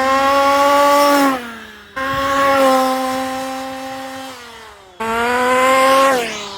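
Small petrol two-stroke engine of a 1/5-scale FG RC Formula 1 car running at high revs: three passes, each holding a steady high pitch and then dropping in pitch as the throttle comes off, joined by abrupt cuts.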